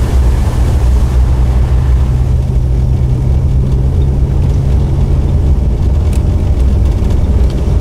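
Jeep engine running steadily while driving along a wet road, heard from inside the cab as a constant low hum under road noise, with a few faint clicks near the end.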